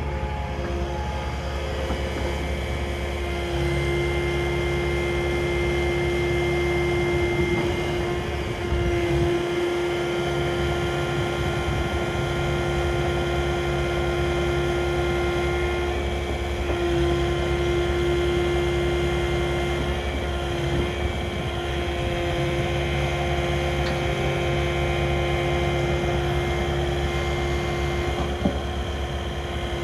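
Kubota KX080-4 midi excavator's diesel engine running with a steady hydraulic whine. The tone and load shift every few seconds as the boom and arm are worked.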